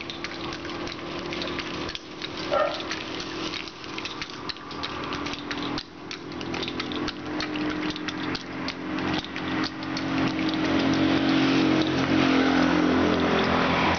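Motor vehicle engine running, getting louder through the second half, under a dense patter of sharp ticks and knocks.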